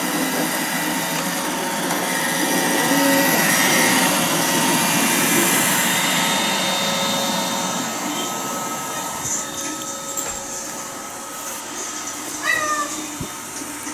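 Roomba robot vacuum running with a steady whirring hum that grows fainter after about eight seconds. Near the end a cat gives one short meow.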